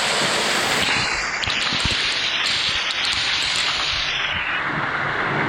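Waterfall's steady, loud rush of falling water, heard close up from the hollow behind the falls.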